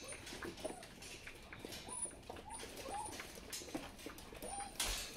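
Bernedoodle and Goldendoodle puppies whimpering and whining: many short rising-and-falling cries overlap all through, with a short clatter near the end.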